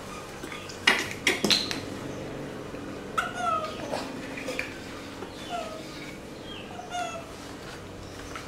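A metal spoon clinks and scrapes in a tin of powdered milk formula, with a few sharp knocks about a second in. Then a baby macaque gives a string of short, high, squeaky calls.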